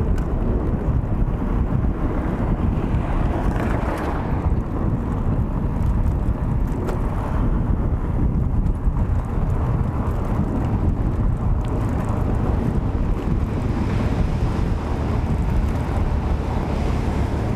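Wind buffeting the microphone and tyre rumble from a mountain bike riding over broken, patched asphalt, a steady low rush with a few sharp knocks as the bike hits bumps.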